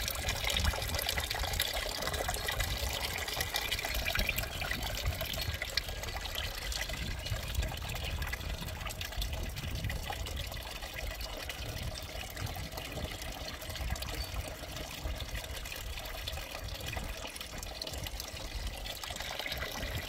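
Water from a small electric garden fountain trickling and splashing in two streams: one falls from the hand-pump-style spout into the top barrel, the other spills from the top barrel into the lower one. Under it is a steady low rumble of wind on the microphone.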